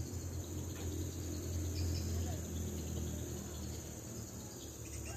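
Insects chirring in a steady, high, even drone, with a low hum underneath.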